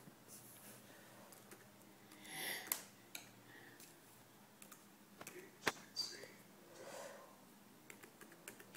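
Irregular clicks and taps of a laptop's keys and touchpad pressed by a small child's fingers: a few sharp clicks among quieter taps, with a couple of soft breathy sounds between.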